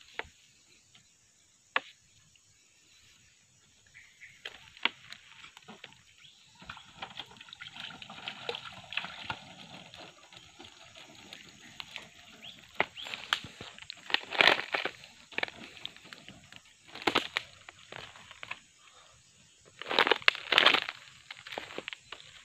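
Dry palm fronds and leaf litter crunching and rustling underfoot and against the body, with scattered snaps and several louder bursts of rustling past the middle and near the end.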